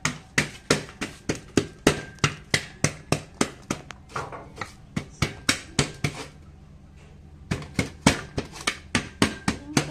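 Wooden pestle pounding garlic, chili and scallion roots in a metal pot: a steady run of sharp knocks, about three a second. They pause for a little over a second about six seconds in, then start again.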